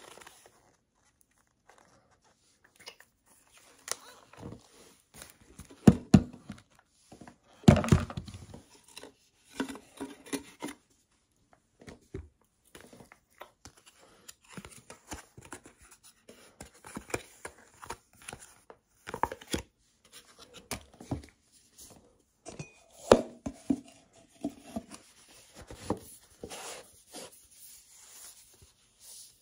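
Irregular handling noises of a portable juicer blender's plastic bottle and its paper packaging: rustling and crinkling paper with scattered clicks and knocks, the loudest knocks about six and eight seconds in.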